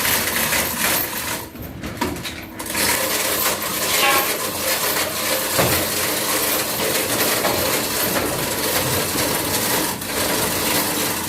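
A cutting machine running on a test run after repair, with a continuous metallic rattling and clatter that dips briefly about a second and a half in.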